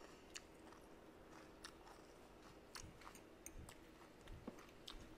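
Faint close-up chewing of a mouthful of soft rice and braised fish, with a dozen or so small sharp clicks scattered through it.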